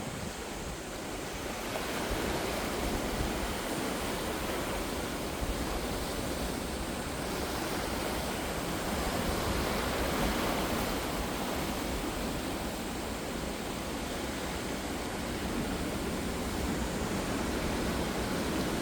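Ocean surf: waves washing in as a continuous rushing wash that swells and eases slowly, fullest around the middle.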